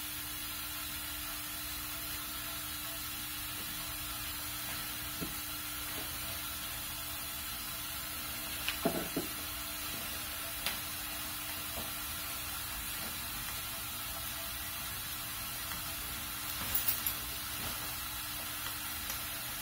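Steady hiss with a faint steady hum from the Wilesco D20 model steam engine's boiler heating over its solid-fuel burner. Light clicks and taps of small parts being handled come about nine seconds in, again a second later, and as a cluster near the end.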